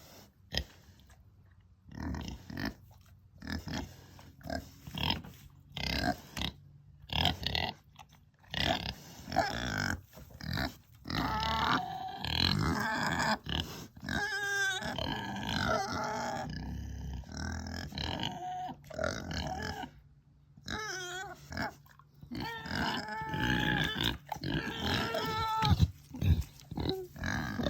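Kunekune pigs vocalising: a run of short grunts at first, then from about a third of the way in longer, wavering, squeaky pitched sounds.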